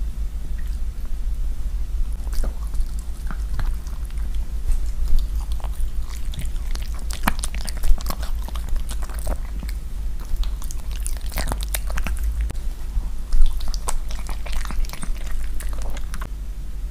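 A small poodle chewing and biting food, with irregular wet crunches and clicks of its teeth, over a steady low hum.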